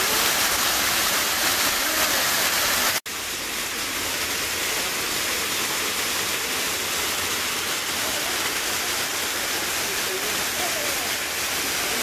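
Small waterfall cascading down mossy rock: a steady rush of falling water. It breaks off for an instant about three seconds in, then carries on a little softer.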